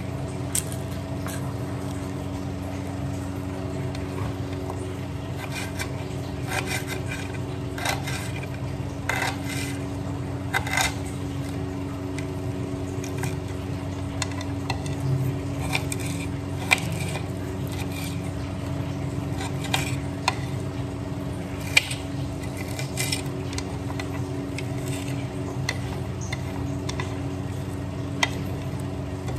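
Kitchen knife chopping onion on a ceramic plate: irregular sharp clicks and taps as the blade strikes the plate, over a steady low hum.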